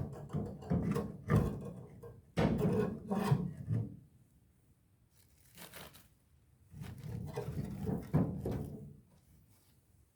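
Scraping and handling noises in three bouts of about one and a half to two seconds each, with a brief one between the second and third.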